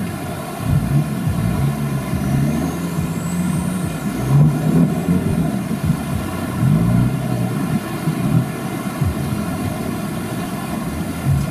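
Off-road 4x4 vehicle's engine revving up and down repeatedly, its pitch rising and falling every second or two.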